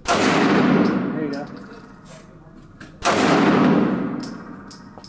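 Two pistol shots from a CZ SP-01 with a red-dot sight, about three seconds apart, in slow deliberate fire. Each shot is a sharp crack followed by a long echo that fades over a second or two in the indoor range.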